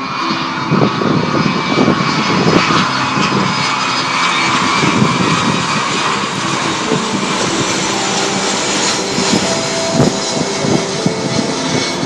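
Large jet aircraft flying low overhead, its engines giving a loud, steady roar.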